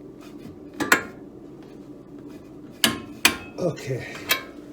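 Metal hand tools clinking and knocking against metal during tie-rod work on a car's steering: a couple of sharp metallic knocks about a second in, then a quick run of several more near the end.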